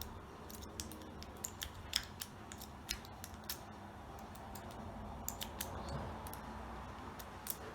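Lock-pick rake cut from steel strapping being scrubbed in and out of an American Lock 1100 padlock's keyway: faint, irregular metallic clicks and scrapes as it rattles over the pins.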